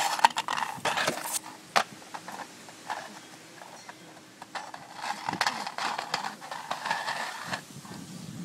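Handling noise from a phone camera: rubbing, scuffing and a few sharp knocks, loudest in about the first second and a half and again from about five to seven and a half seconds in.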